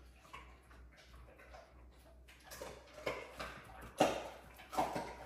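Pets gnawing on chew sticks: irregular crunches and clicks, the loudest about four seconds in.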